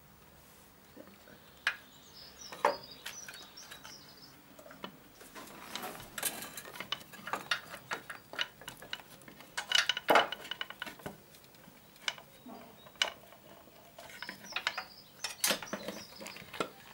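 Irregular metallic clinks, clicks and knocks in scattered clusters as the Honda NTV 650's aluminium valve cover and nearby engine parts are handled and worked out between the frame tubes.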